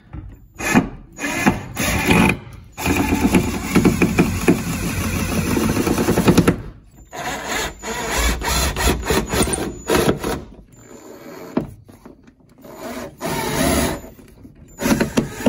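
Cordless Ryobi impact driver driving long wood screws down through a wooden mantel into a 2x4 beneath it, in several runs, the longest a few seconds long in the first half.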